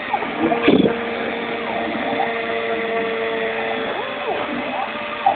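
CNC machine's stepper motors whining as an axis moves: a steady hum, then about four seconds in a quick rise in pitch, a short hold and a fall as the motor speeds up and slows down.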